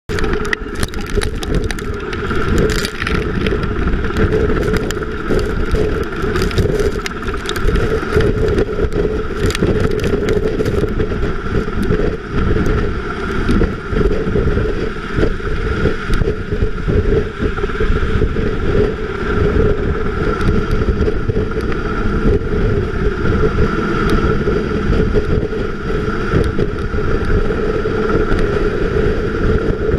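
Black Hawk helicopter hovering close overhead: a loud, steady rotor and turbine noise, with rotor downwash buffeting the microphone.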